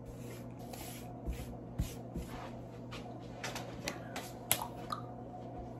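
Faint kitchen handling noises: scattered rustling and light clicks and knocks, the sharpest about four and a half seconds in, over a steady low hum.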